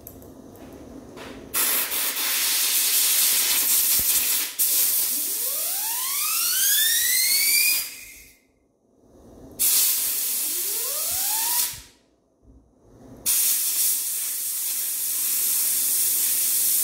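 Compressed-air blow gun hissing in three long blasts, each cutting off sharply. During the first two a whistle rises in pitch as the air plays over the part.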